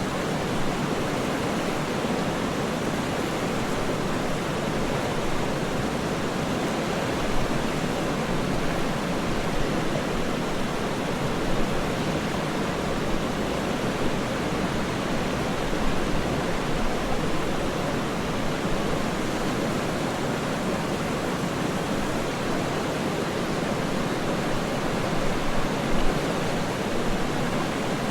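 Waterfall: a steady, unbroken rush of falling water with no separate splashes or changes.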